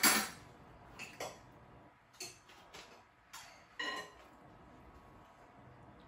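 Kitchen utensils and dishes clattering: about six separate clinks and knocks, the loudest right at the start, a few with a short metallic ring.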